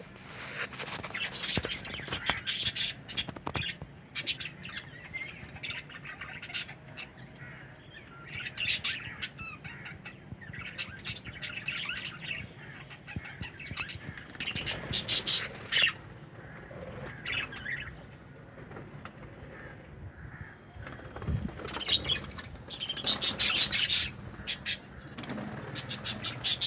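Small pet parrots chattering, with quick high chirps and squawks coming in loud bursts every few seconds.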